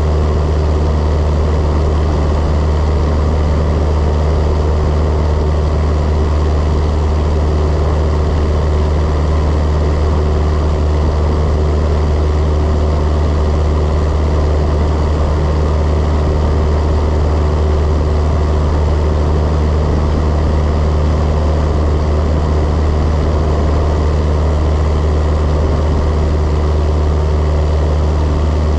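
Cessna 172's piston engine and propeller droning steadily in level cruise flight, a loud, deep, unchanging hum.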